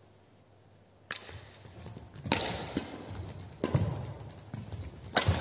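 Badminton rackets hitting a shuttlecock in a rally, four sharp hits about every second and a half starting about a second in, with players' shoes thudding on the court between them.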